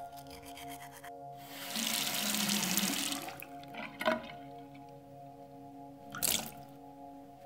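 Bathroom washbasin tap running for about a second and a half, then a sharp click, then a short splash into the basin near the end, over a steady held music drone.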